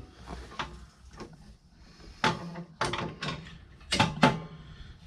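Metal engine parts and tools being handled: a few light clicks, then a run of sharp clanks with a short ring in the second half, the loudest near the end.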